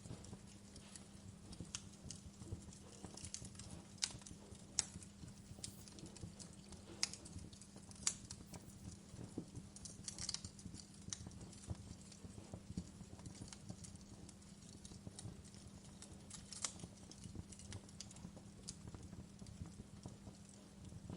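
Wood fire crackling: irregular sharp pops and snaps, a few louder than the rest, over a steady low hum.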